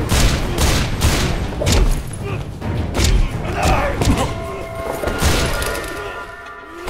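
Fight-scene sound effects: a fast run of punch and kick impacts with whooshes and short grunts, over a music score. A sustained musical chord comes in during the last couple of seconds.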